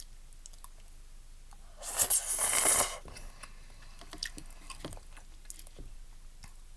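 A loud slurp of udon noodles lasting about a second, about two seconds in, then soft chewing with small wet mouth clicks.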